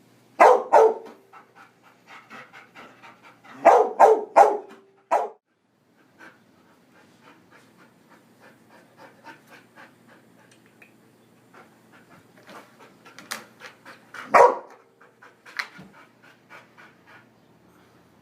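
Large dog barking in short bursts: two barks at the start, three more about four seconds in, then one near five seconds and a single loud one late on, with steady panting in between.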